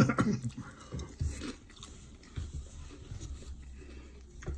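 A person chewing and biting into barbecued chicken, with small irregular mouth clicks and smacks, after a short vocal sound right at the start.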